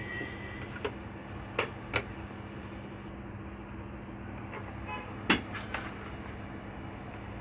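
Tools clicking against a laptop motherboard as a capacitor is removed, five short sharp clicks, the loudest a little after five seconds, over a steady low electrical hum.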